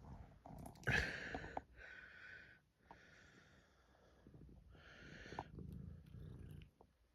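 Domestic cat purring close to the microphone, the purr rising and falling in breath-length swells with short pauses. A brief louder noise about a second in.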